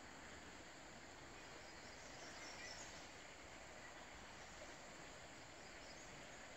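Near silence: faint steady outdoor background hiss, with a few faint high chirps.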